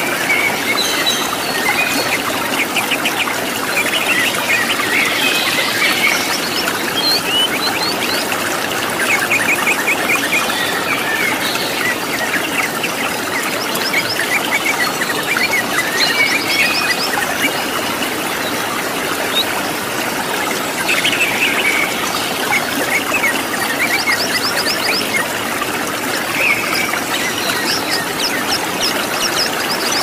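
Waterfall rushing steadily, with wild birds chirping and trilling over it in many quick runs of high notes.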